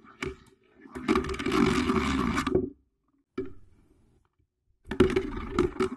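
Homemade beyblades spinning on a plastic stadium: a steady scraping whirr with sharp clacks as the tops hit each other. It cuts out about halfway through, and a new spin with the same scraping and clacks starts near the end.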